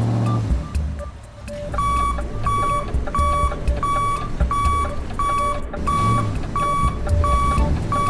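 Vehicle reversing alarm beeping at a steady pace, about three beeps every two seconds and starting about two seconds in, over a low engine rumble: the tractor is backing up.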